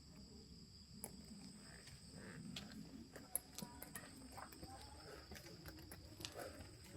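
Faint, steady insect chorus trilling at two high pitches, with scattered soft clicks and taps.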